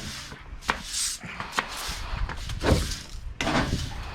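A bristle broom sweeping in quick strokes, with several dull knocks and thuds mixed in; the heaviest thud comes about two-thirds of the way through.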